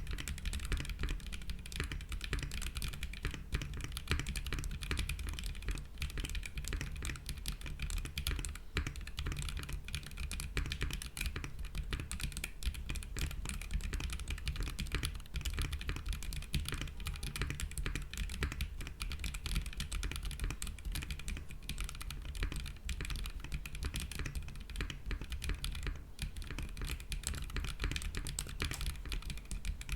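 Continuous fast typing on a mechanical keyboard fitted with Duhuk Matcha V4 linear switches, an aluminium plate with no foam, and GMK keycaps. The keystrokes come in a dense, steady stream with a deep, thocky sound.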